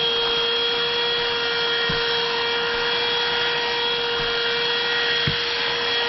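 GeeMo X4 cordless handheld vacuum running steadily on dust pickup: a steady motor whine over the rush of air through the nozzle.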